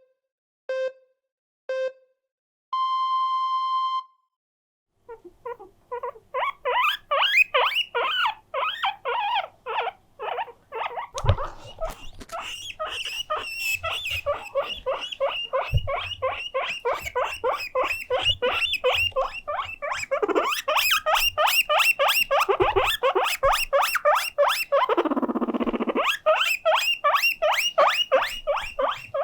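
Three short electronic pips and then one longer, higher beep. After that comes a guinea pig's loud, rapid wheeking, several shrill calls a second without a break: an attention call inviting play. There are a few soft thumps underneath.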